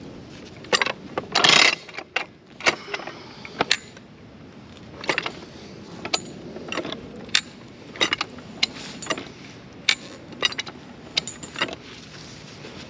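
Farm jack being pumped, its steel climbing mechanism clacking and clicking irregularly on the notched bar as the handle is worked, with chain rattle, while it strains against a chain anchored in concrete. The loudest clank comes about one and a half seconds in.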